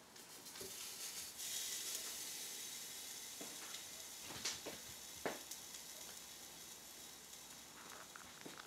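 Grouper steaks sizzling on the hot grate of an indoor smokeless grill as they are turned over. The hiss swells about a second in and slowly eases, with a few sharp pops and crackles in the middle.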